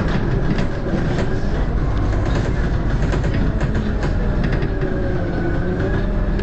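Cabin noise of a Volvo B7RLE single-deck bus on the move: a steady low drone from its rear-mounted diesel engine, with body rattles and clicks, and a faint whine that slowly rises and falls in pitch.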